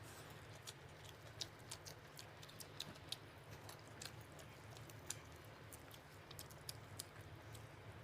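Faint chewing of mutton biryani, a scatter of small irregular mouth clicks, over a steady low hum.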